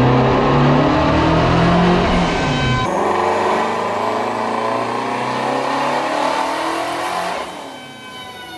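Twin-turbocharged Shelby GT350R's 5.2-litre flat-plane-crank V8 running at wide-open throttle on a chassis dyno, revs climbing through a pull in fifth gear. The sound changes abruptly about three seconds in and turns hissier. Near the end the engine lets off and its pitch falls as it winds down.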